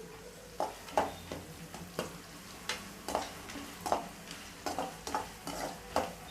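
Chopped onions frying in hot oil in a pan, stirred with a spoon that knocks and scrapes against the pan about twice a second over a faint sizzle.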